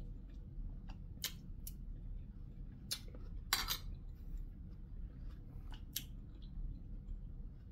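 Spoon and fork clicking and scraping against a plate while scooping rice: a handful of short sharp clicks, the loudest and longest about three and a half seconds in.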